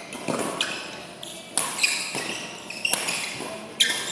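Badminton rally: sharp racket strikes on the shuttlecock about a second apart, with short squeaks of shoes on the court floor between them.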